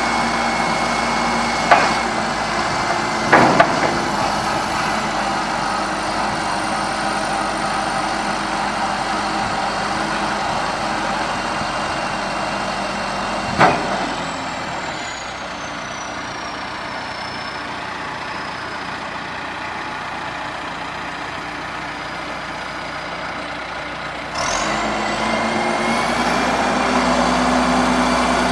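John Deere 310SJ backhoe loader's diesel engine running. It slows to a lower speed about halfway through and revs back up near the end. A few sharp knocks sound over the engine in the first fifteen seconds.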